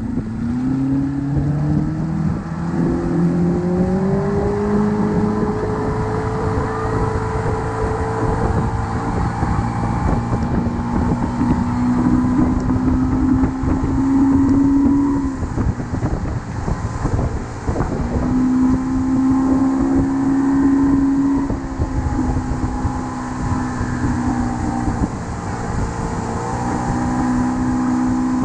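Motorboat engine running, its pitch climbing over the first several seconds as it speeds up, then holding steady in long stretches with short dips where the throttle eases.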